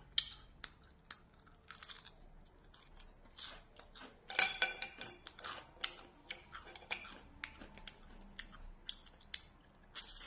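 A person chewing crunchy, crispy food close to the microphone: irregular crackling crunches, with a louder run of crunching about four and a half seconds in.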